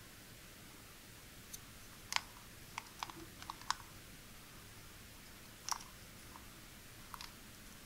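Light, scattered clicks and taps of the hard plastic pieces of a ThinkFun Circuit Maze game being handled: a quick cluster of about six between two and four seconds in, then single clicks near six and seven seconds.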